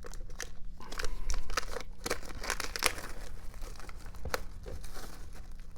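Packaging of a Blu-ray steelbook being torn open and crinkled: a run of irregular crackles and clicks, busiest in the first half.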